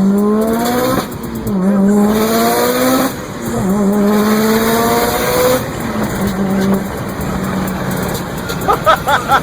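A turbocharged car engine accelerating hard through the gears, its pitch climbing and dropping at each upshift about a second, three seconds and five and a half seconds in, then holding steady. Near the end comes a rapid cluster of short high chirps.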